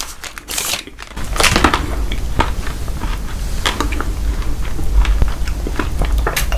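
Close-miked chewing and crunching of chocolate-coated Snickers bars: many sharp crackles and clicks, with a low rumble underneath from about a second in.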